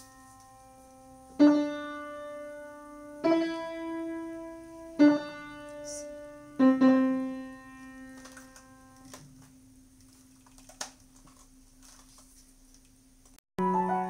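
Piano played one note at a time: four single notes struck slowly in a small stepwise tune, each left ringing, with the last dying away for several seconds. Just before the end, faster playing with several notes sounding together starts.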